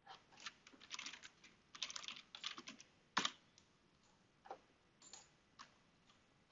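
Typing on a computer keyboard: a quick run of keystrokes, one louder keystroke just after three seconds in, then a few scattered clicks.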